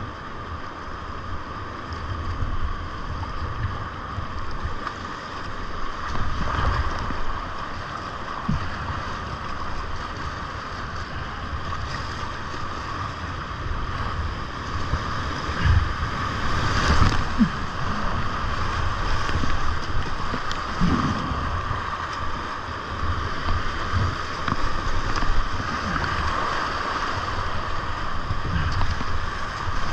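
Rushing whitewater of a high-water creek rapid around a kayak, with irregular low splashes and thumps from paddle strokes and waves hitting the boat, and a louder splash about halfway through.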